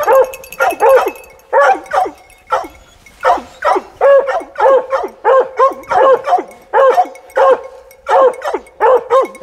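Hunting hounds barking at a treed mountain lion: the steady tree bark that tells the hunters the cat is bayed up. Short barks come about two a second, each falling in pitch, with no break.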